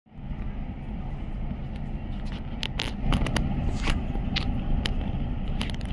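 Steady low rumble with scattered sharp clicks and crackles, a little louder from about three seconds in.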